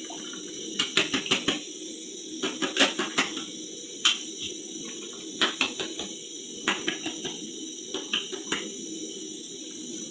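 A utensil clinking and tapping against a container in irregular clusters of quick strikes, as tomato paste is mixed and diluted into a sauce, over a steady background hum.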